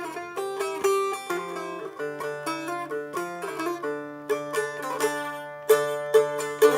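Instrumental break in a Turkish folk song: a plucked string instrument picks a quick melody over a steady low note, with harder, louder strokes in the second half.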